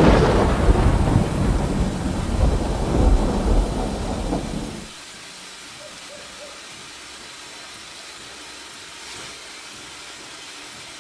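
A thunderclap rumbling over heavy rain, cutting off suddenly about five seconds in and leaving the steady hiss of thick rain.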